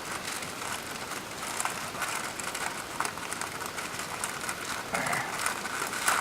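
Wax paper crinkling and rustling with many small irregular crackles as it is rolled up and squeezed around a greasy bird-seed mix.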